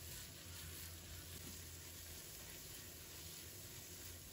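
Faint, steady sizzle of minced garlic, ginger, scallion and bird's eye chilies frying gently in lard over low heat in a wok, with a low steady hum underneath.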